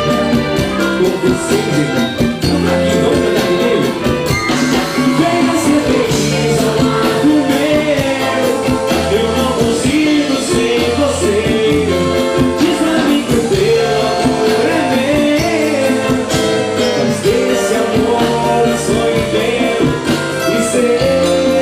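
A live band playing an upbeat song, with a singer, guitar and drums keeping a steady beat.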